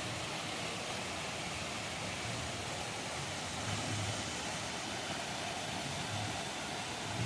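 Waterfall rushing steadily, an even hiss-like roar of falling water.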